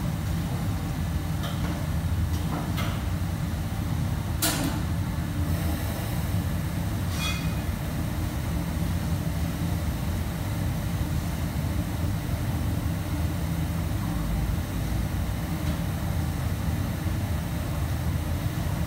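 Steady low rumble of a commercial kitchen's fans and machinery. A few light knocks and clinks of metalware fall in the first half, the sharpest about four and a half seconds in, and one near seven seconds rings briefly.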